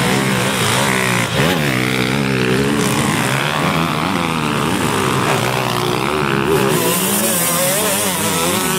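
A pack of enduro motorcycles at a mass race start, many engines revving together and pulling away, their pitches rising and falling over one another.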